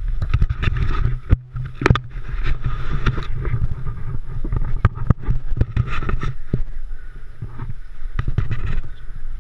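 Handling noise on a GoPro camera: repeated clicks and knocks against the camera housing as it is gripped and moved, over a steady low rumble.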